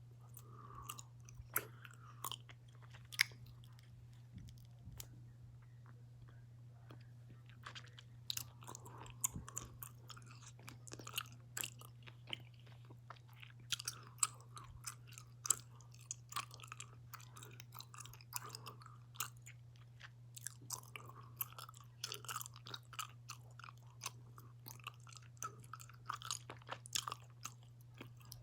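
Close-up wet chewing of a giant gummy bear: many irregular mouth smacks and clicks, over a steady low hum.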